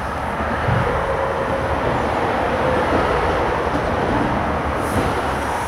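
Steady rumble of a passing vehicle, holding level without a break, with a faint steady tone in the middle.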